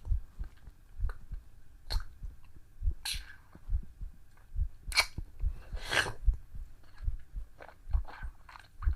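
A real human heartbeat, heard close up as a steady train of soft low thumps about once a second, with a few faint clicks and rustles over it.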